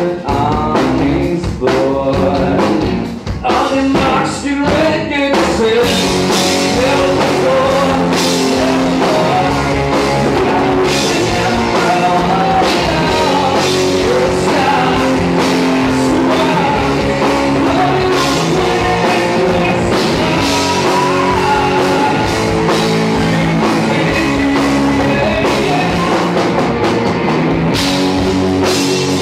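Live rock band playing: electric guitars, bass guitar and drum kit, with singing. The first few seconds are sparser, and the full band comes in about six seconds in and plays on steadily.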